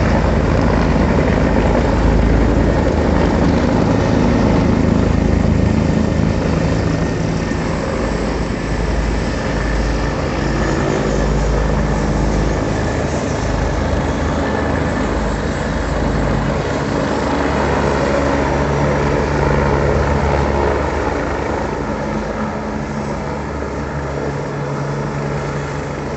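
Helicopter flying close, its rotor and engine loud and steady, easing off slightly over the last few seconds.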